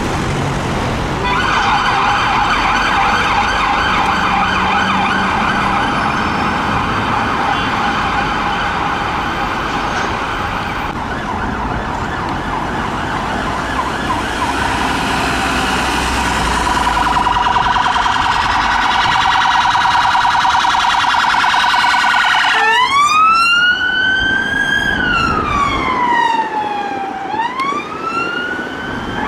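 Police car siren sounding on the move: a fast warbling yelp for most of the time, switching about 23 seconds in to a slow wail that rises and falls.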